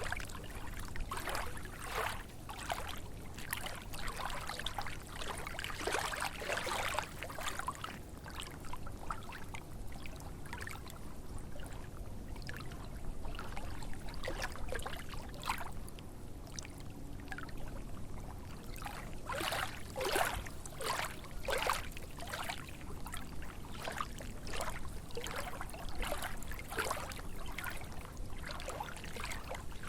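Small lake waves lapping and splashing in an irregular rhythm. There is a quieter stretch in the middle, then a closer run of splashes a few seconds later.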